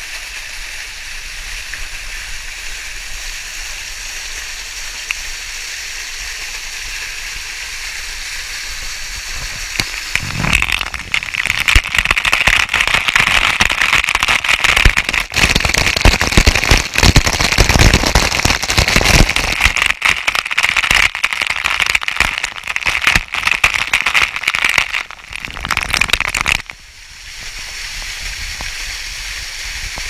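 Waterfall rushing steadily. About ten seconds in, the camera goes into the falling water and the water pelts straight onto it: a loud, dense crackling spatter lasting about sixteen seconds. After that the steady rush of the falls returns.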